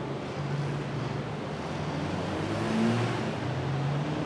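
Street traffic noise with a motor vehicle's engine running close by, its pitch rising briefly about three seconds in.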